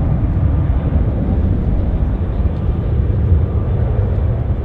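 Jet airliner engines giving a loud, steady, deep rumble.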